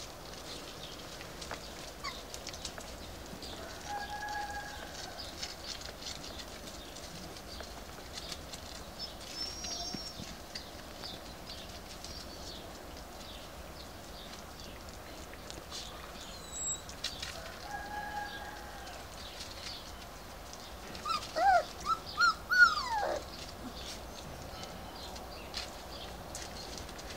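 Four-week-old Finnish Lapphund puppies playing, with faint pattering and rustling over paving and dry leaves. About three-quarters of the way through comes the loudest part: a quick run of high-pitched, falling puppy yelps and squeals.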